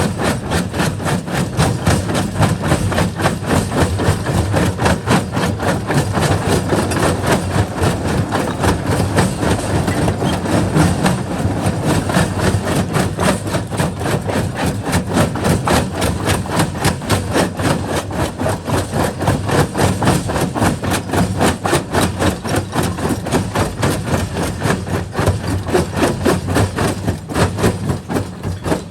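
Jaw crusher crushing rock: a continuous, fast and even run of knocks and cracks over the machine's running.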